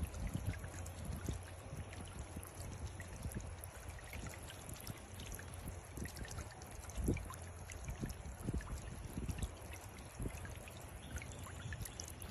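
Water from a small solar-powered bird-bath fountain spraying and splashing steadily into the bath's basin, with many small drips and splashes over a low rumble.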